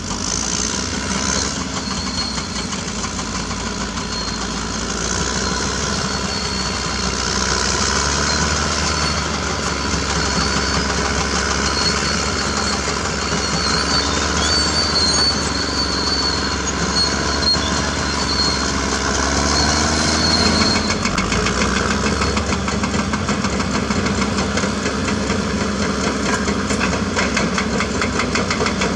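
CAT D6R crawler bulldozer's diesel engine running steadily, with a thin high whine over it that stops about twenty seconds in.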